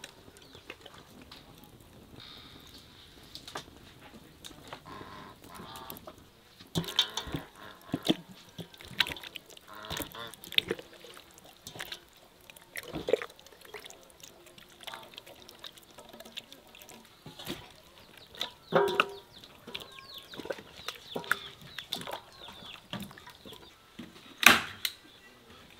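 Wet squelching and slapping of hands kneading chicken pieces in a thick marinade in an enamel bowl, in irregular bursts. A sharp knock near the end is the loudest sound.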